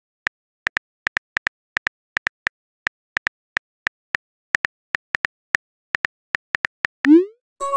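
Texting-app keyboard click sound effects, one sharp click per typed letter at an uneven pace of about three to four a second. Near the end a short rising swoop and then a bell-like chime, the app's message-sent sound.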